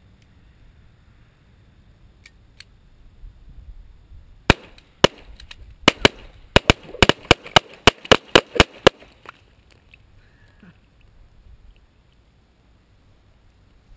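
Two .22 LR pistols, a GSG 1911-22 and a Browning Challenger, firing together: a rapid string of about fourteen shots starting about four and a half seconds in and ending about four seconds later.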